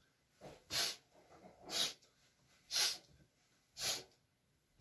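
Short, sharp sniffs in through the nose, about one a second, four in a row: the forceful inhalations of Strelnikova's paradoxical breathing gymnastics.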